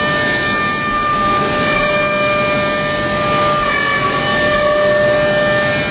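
Ceramic milling cutter on a Starrag LX 251 cutting an Inconel turbine blade at high speed, with glowing chips thrown off as sparks. The cut makes a steady whine of several held tones over a hiss of cutting noise.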